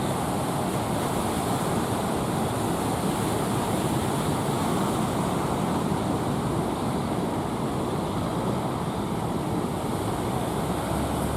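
Ocean surf breaking in a steady, continuous wash, with wind buffeting the microphone.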